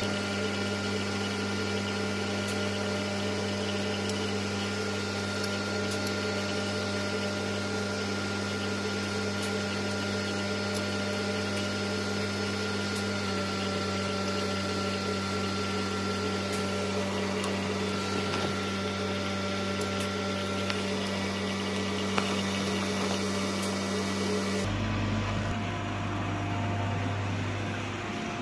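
Steady low machine hum of running lab equipment, a buzz with a few fainter higher tones, with a few faint clicks of metal parts being handled. About 25 seconds in the hum changes to a deeper rumble.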